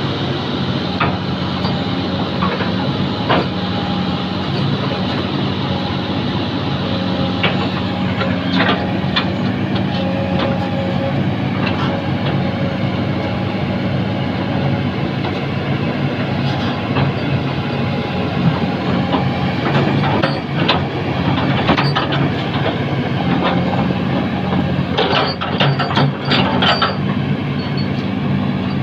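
An engine running steadily, with scattered knocks and clatter that come thicker near the end.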